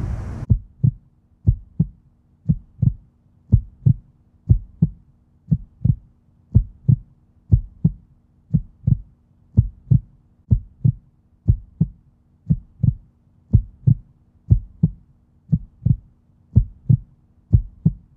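Heartbeat sound effect: paired low thumps, about one pair a second, over a faint steady hum. It replaces the live outdoor sound, which cuts off about half a second in.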